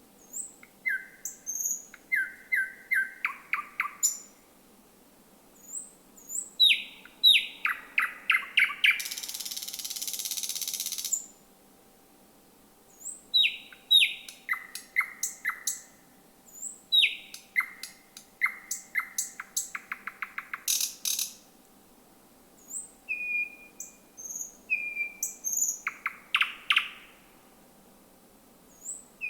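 Thrush nightingale singing: phrases of sharp, rapidly repeated notes and clicks, separated by short silent pauses. About nine seconds in comes a loud rasping rattle lasting about two seconds.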